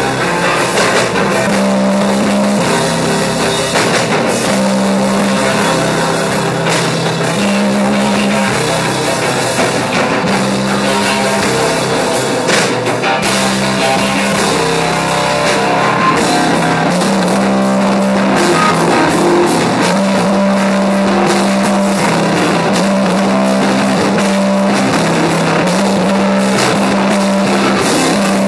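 Live stoner doom band playing: electric guitar and bass on a low, heavy riff that repeats about every two seconds over a drum kit with crashing cymbals, loud and dense throughout.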